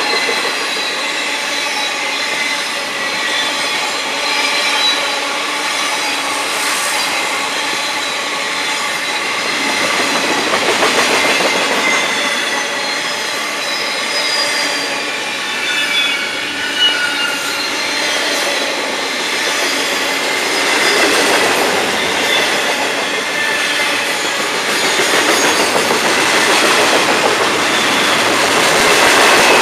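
Florida East Coast Railway freight train's intermodal cars rolling past close by, steel wheels running on the rails. Several high-pitched wheel squeals drift in pitch over a continuous rolling rumble.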